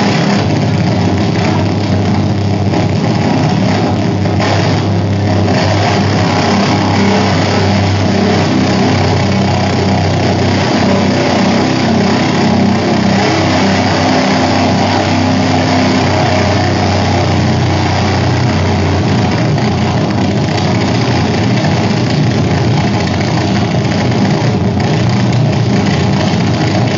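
Harsh noise from contact-amplified pocket calculators pressed into spinning electric fans: a loud, steady electric drone with a low hum under dense grinding hiss.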